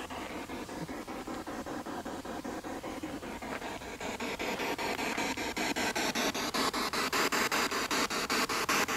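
Radio static from a spirit box sweeping through stations, chopped into quick even steps about six times a second.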